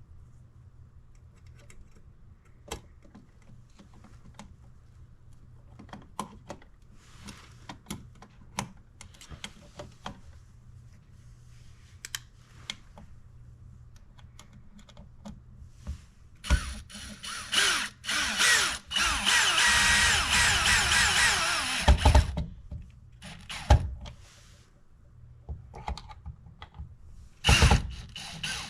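Cordless drill/driver running in several short bursts, its motor pitch sliding up and down, preceded by scattered light clicks and taps of hand work on the outlet.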